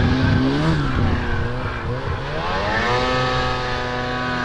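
Ski-Doo snowmobile engine revving, its pitch rising and falling for the first couple of seconds, then climbing to a steady high rev held to near the end as the sled is ridden off through deep snow.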